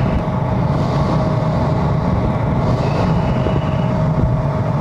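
Jet aircraft engine drone in flight: a steady deep rumble with a constant whine above it.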